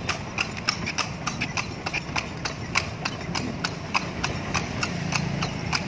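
A carriage horse's hooves clip-clopping on an asphalt road as it pulls a tartanilla, a steady even beat of about four to five clops a second.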